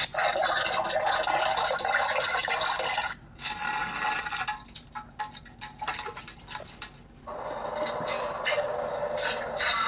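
Slowed-down diarrhea sound effect with reverb added: a rasping, spluttering noise that breaks up into scattered crackles for a few seconds in the middle, then comes back steady.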